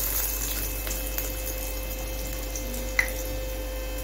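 Hot oil sizzling and bubbling around a breadcrumb-coated bread roll shallow-frying in a pan, with one sharp pop about three seconds in.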